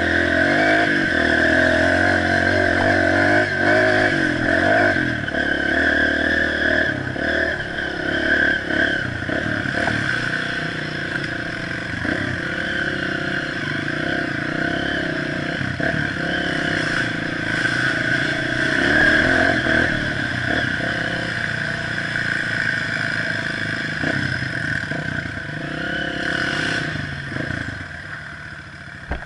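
Honda CRF230F dirt bike's air-cooled single-cylinder four-stroke engine running while riding a rough dirt trail, with knocks and rattles from the bike over the bumps. The engine gets quieter near the end.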